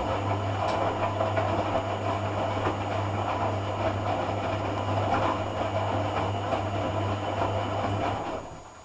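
A Hoover AC166 Classica 1200 automatic washing machine running during its cotton rinse: a steady low hum with rattling and churning over it. It cuts off about eight seconds in.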